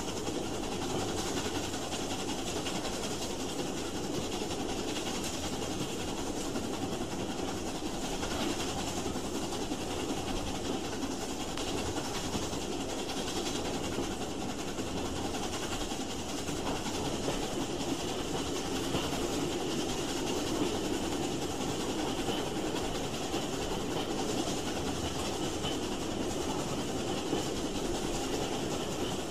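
Railway train running steadily along the track: a continuous rumble of wheels and running gear that holds at an even level throughout.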